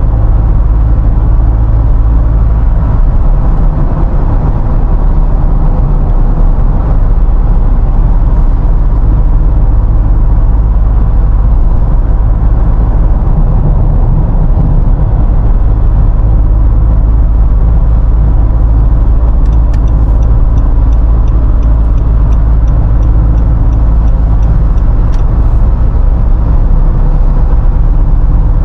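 Steady low road and engine rumble inside a Nissan Navara pickup's cabin, cruising on an expressway. For a few seconds past the middle there is also a faint, rapid, even ticking.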